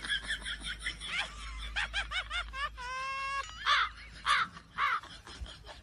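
A high-pitched voice laughing and squealing in quick rising-and-falling calls, with one held note about halfway through.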